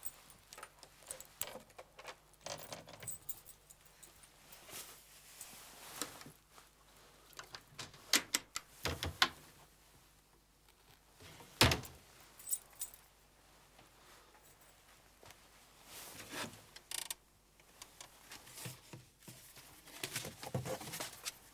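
Rummaging through a wooden cabinet and desk: small clicks, rattles and rustles, broken by a few louder knocks of doors and drawers, the sharpest about twelve seconds in.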